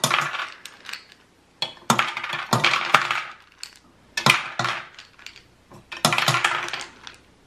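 Hard peppermint candies dropped one at a time into a food processor's empty plastic bowl, each landing with a sharp clatter and a short rattle, at irregular intervals.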